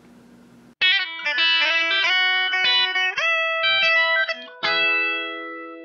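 Short electric guitar sting: a quick run of picked notes starts about a second in and ends on a chord that rings out and slowly fades.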